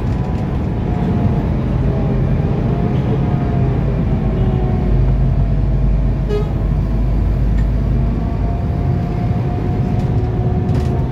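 Steady low engine and road noise heard from inside a Scania articulated bus moving through city traffic, with a faint whining tone over it and a short beep about six seconds in.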